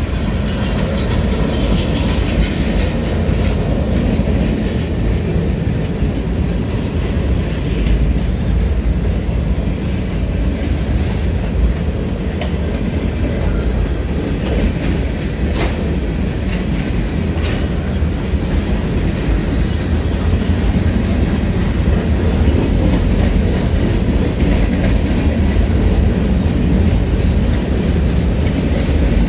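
Canadian National freight train of tank cars and boxcars rolling past close by: a steady rumble of steel wheels on rail, with sharp clicks as the wheels cross the rail joints.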